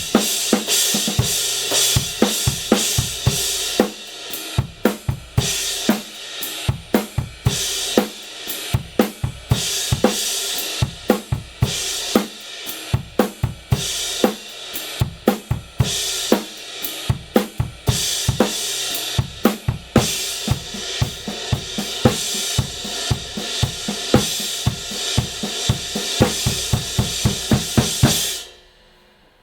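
Drum kit played in a steady groove, with a Kingdo Artist Dark 19-inch crash cymbal washing over the kick and snare hits. The playing stops abruptly about a second before the end.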